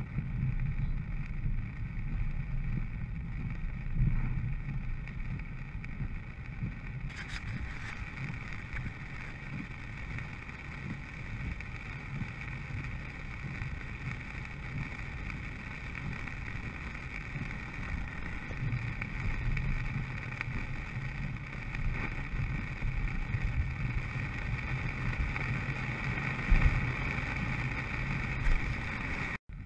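A car driving through a heavy rainstorm, heard inside the cabin: steady rain on the roof and windshield over tyre and road noise on the wet road, with a low rumble beneath. The hiss grows brighter about seven seconds in.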